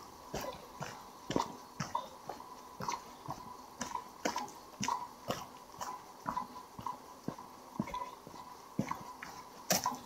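Footsteps at a steady walking pace, about two a second.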